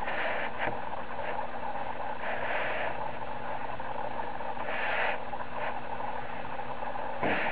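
Lubrication disk chart being turned by hand, its wheel scraping briefly every second or two over a steady background noise, with a louder bump near the end.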